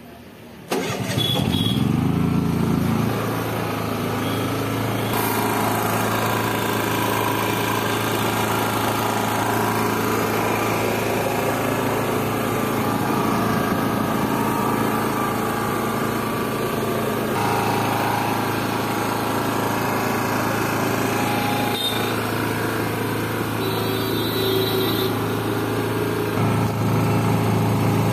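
Honda EU65is inverter generator started on its key electric starter: the engine catches about a second in, revs up, then runs steadily, its note changing near the end.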